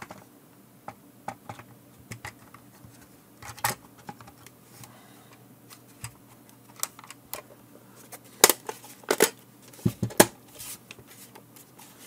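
Plastic case of a Fluke 289 multimeter being pressed together and turned over in the hands: scattered light clicks and taps, with a few louder, sharper clicks about eight to ten seconds in.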